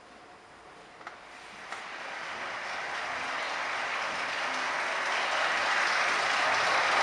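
Audience applause that swells steadily from faint to full, with a couple of small knocks near the start.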